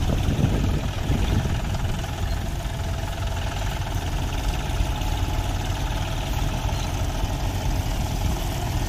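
John Deere tractor's diesel engine running steadily at low revs as the tractor reverses slowly.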